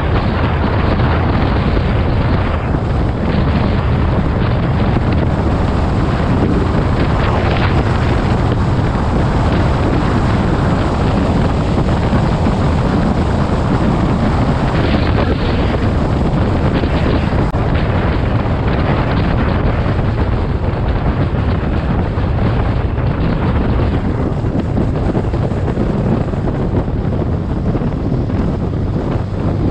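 Wind buffeting the microphone of a camera on a motorcycle riding at road speed, with the engine's steady low drone underneath.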